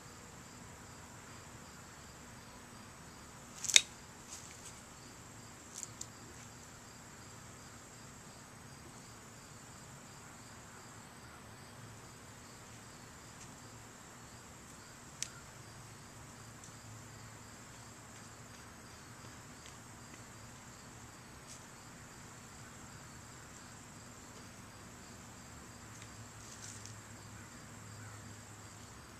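A steady, high-pitched insect chorus, with a sharp snap about four seconds in and a few fainter clicks later from long-handled loppers cutting through pumpkin stems.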